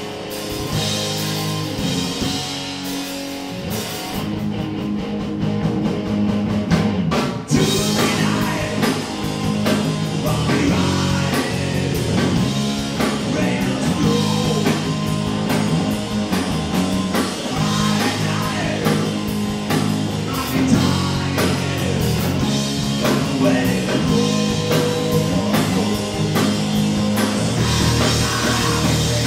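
Live punk rock band playing loud: distorted electric guitars, bass and drum kit, with vocals. The cymbals drop out for a few seconds, then the full band comes back in with a crash about seven seconds in.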